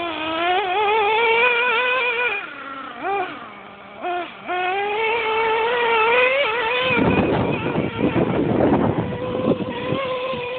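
Traxxas Nitro Rustler's two-stroke nitro glow engine, revving up and down with the throttle as the RC truck runs, dropping to a low idle for a couple of seconds a few seconds in, then climbing again. From about seven seconds a rough crackling rattle covers the engine for about three seconds.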